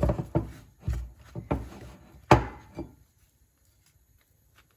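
Bun dough being mixed by hand in a bowl: a run of soft knocks and rubs, two or three a second, the loudest about two seconds in, stopping about three seconds in.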